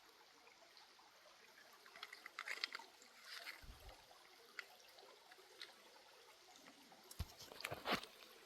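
Shallow Ozark creek water trickling faintly, with scattered splashes and knocks in clusters, the loudest near the end.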